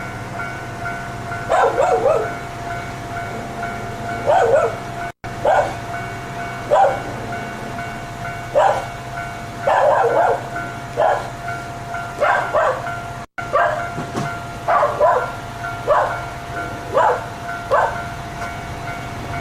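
A dog barking again and again at uneven intervals, about once a second, over a steady high-pitched tone and a low hum. The sound cuts out briefly twice.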